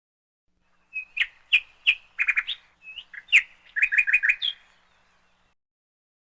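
Small bird chirping in quick, sharp bursts, with rapid runs of three or four chirps, stopping about two-thirds of the way through.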